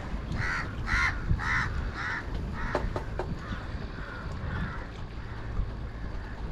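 A crow cawing four times, about half a second apart, followed by a few short sharp clicks, over a steady low rumble.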